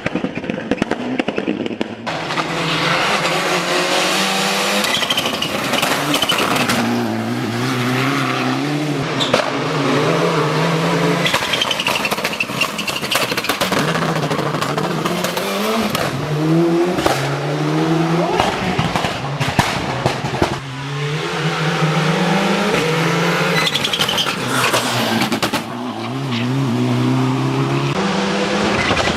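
Tamiya TT-02 radio-controlled car driving, its engine-like sound repeatedly rising and falling in pitch as it speeds up and slows down, with tyre noise and scattered clicks.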